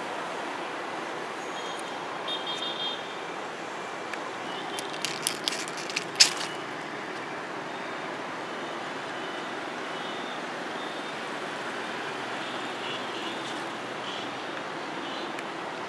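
Steady hum of distant road traffic. A few sharp clicks come in the middle, the loudest about six seconds in.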